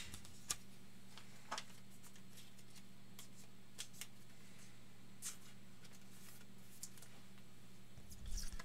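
Faint scattered clicks and rustles of trading cards being handled, over a steady low electrical hum, with a soft low thump near the end.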